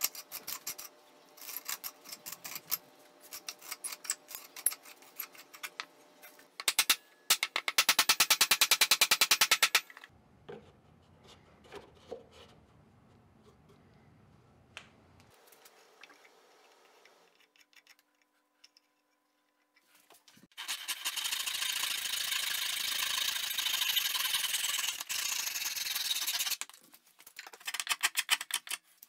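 Hand tools cutting and shaving wooden chair stretchers: runs of rapid scraping strokes of a blade on wood, a loud fast run about a third of the way in, a quiet stretch in the middle, then a long steady run of shaving in the last third.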